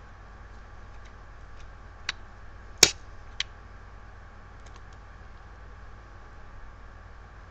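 A few sharp clicks and faint ticks from handling adhesive ECG electrodes, pressing them onto the skin and peeling their backing; the loudest click comes just under three seconds in. A steady low hum runs underneath.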